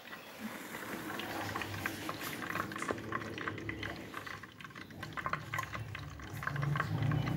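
Hot cooking oil sizzling in a frying pan, a steady hiss with many small crackles and pops. A low steady hum comes in near the end.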